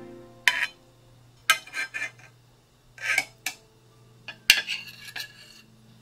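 Stainless ladle clinking against a metal saucepan and a ceramic plate while poached figs are scooped out of red wine: four clusters of sharp clinks a second or so apart.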